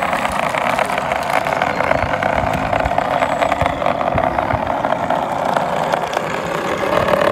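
Simulated piston-engine sound from an ESS-Air V2.0 sound unit fitted in an electric RC P-47 model, running steadily and evenly, with no breaks or changes in pitch.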